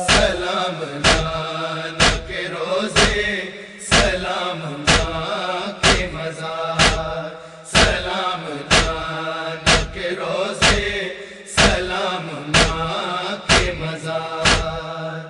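Wordless chanted vocals of a Muharram nauha (lament) interlude, over a steady sharp strike about once a second.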